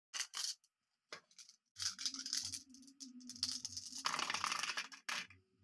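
Glass marbles and a plastic toy being handled: irregular clicking, rattling and rustling in several short bursts.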